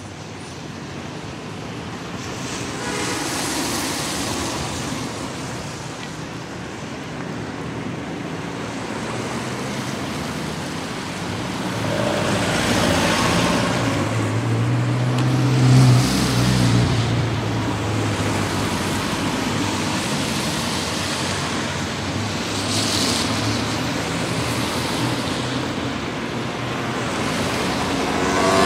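Continuous road traffic: tyre and engine noise that swells and fades as vehicles pass one after another. The loudest pass, about halfway through, carries a low engine hum.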